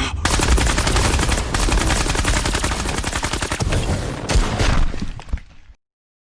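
Anime sound effect of a rapid barrage of gunfire-like blasts, many per second, fading out and stopping shortly before the end.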